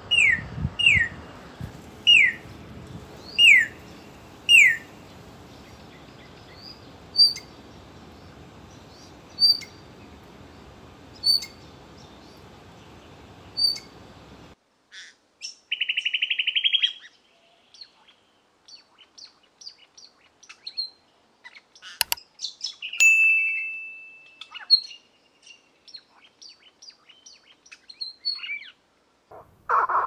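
Australasian figbirds calling. First comes a series of loud, sharply descending whistles about once a second, then fainter short high notes. After that come a quick buzzy trill, assorted chirps and one drawn-out whistle.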